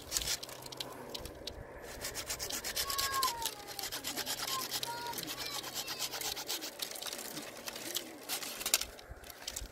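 Rapid, repeated scraping or rubbing strokes, many a second, in a steady run that fades near the end.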